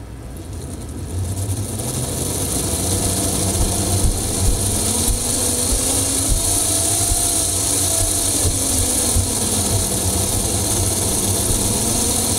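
The two small DC motors of a Lionel GP-38 diesel locomotive run on a bench power supply. The whir grows louder over the first couple of seconds as the voltage is raised to about 7 volts. Its pitch rises toward the middle, then sinks slightly as the voltage eases back.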